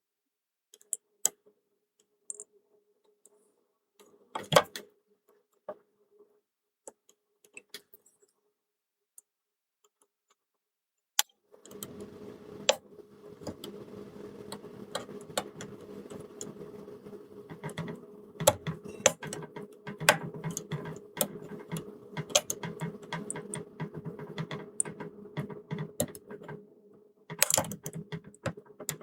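Light metallic clicks and scrapes of a pick and tensioner working inside a Belfry pipe-key padlock during picking. About twelve seconds in, a steady hum joins and runs under denser clicking.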